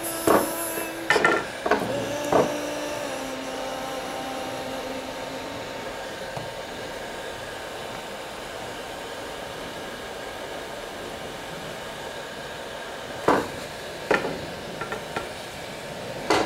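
Electric heat gun blowing steadily on wooden aileron rib joints to soften the T88 epoxy glue. Sharp wooden knocks and snaps come as the rib pieces are worked loose from the spar: several in the first couple of seconds and a few more near the end.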